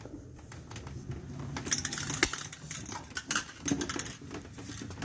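Irregular light clicks and taps of hand work on a drum brake assembly, with a brief hiss about two seconds in.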